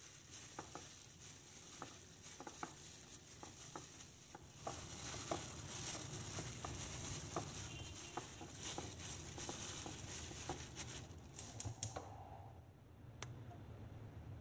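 Soft crinkling and rustling of a plastic glove as a hand mixes raw fish pieces with spice powder in a plate, with scattered small wet taps and clicks.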